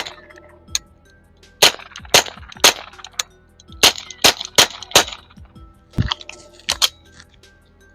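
Suppressed Walther PPK/S .22 LR pistol fired through a Silencerco Switchback 22 suppressor: a string of about eleven sharp, short reports at an irregular pace, some in quick pairs. The ammunition is supersonic, which this suppressor keeps hearing safe.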